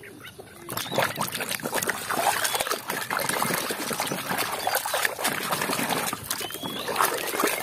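Thick muddy water sloshing and squelching in a plastic tub as a hand swishes and scrubs a toy car under the surface: a steady run of wet splashes and gurgles.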